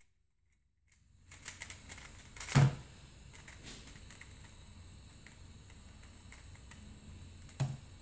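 Angstrom Valk 3 Elite M magnetic 3x3 speed cube being turned in the hands, its plastic layers clicking rapidly over a steady hiss. A louder knock comes about two and a half seconds in and again near the end.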